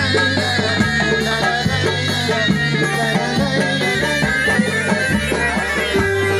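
Instrumental folk music: a wind-instrument melody over drums and a steady low drone.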